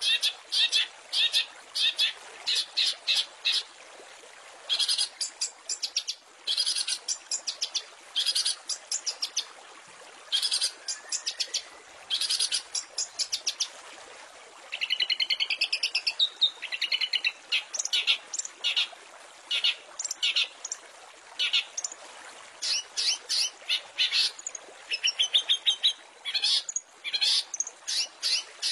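Long-tailed shrike (cendet) singing in rapid-fire bursts of quickly repeated high notes, each burst about a second long with short gaps between, and a wavering warbled phrase about halfway through. A steady hiss runs underneath.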